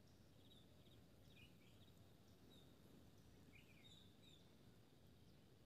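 Near silence: faint background hum with a few scattered, faint bird chirps.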